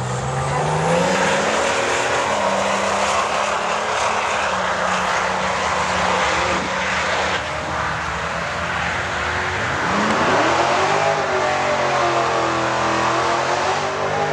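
Drag cars, a Ford FPV BF GT V8 and a turbocharged inline-six EB Fairmont, launching hard off the line and accelerating down the strip, engine pitch climbing steadily through the gears. About ten seconds in the engine note dips and then climbs sharply again.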